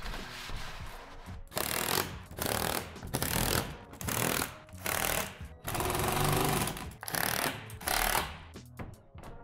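Cordless drill/driver driving screws overhead into the shed's roof panel, in a series of short bursts of under a second each, over background music.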